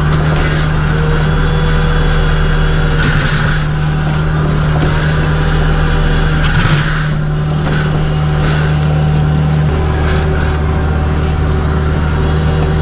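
Kubota U55-4 mini excavator's diesel engine running steadily under load, driving a hydraulic flail mower, with several short bursts of noise as the mower head chews into brush.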